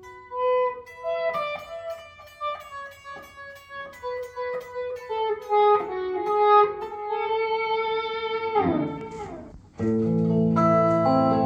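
Background music: a plucked electric guitar plays a run of short notes, slides down near the end, then gives way to held, sustained notes.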